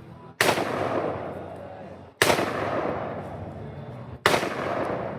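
Three gunshots about two seconds apart, each sharp crack trailing off in a long echo.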